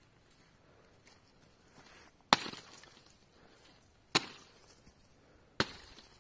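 Three heavy blows about one and a half to two seconds apart, each a sharp crack followed by a short decaying tail, like a tool striking wood.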